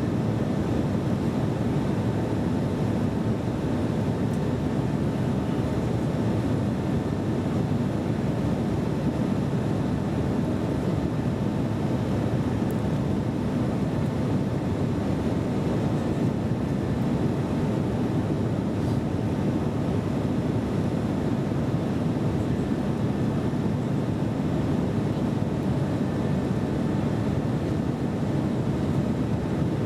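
Steady cabin noise inside a jet airliner in flight: an even rush of engines and airflow, with a faint steady tone above it.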